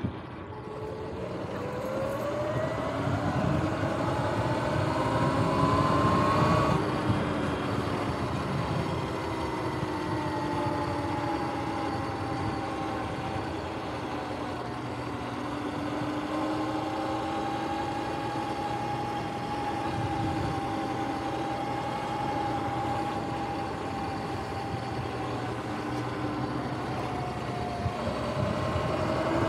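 Sur-Ron X electric dirt bike's motor and belt drive whining as it rides, rising in pitch as it speeds up over the first several seconds. It then holds a steadier whine at cruising speed and climbs again near the end. Wind rumbles on the microphone underneath.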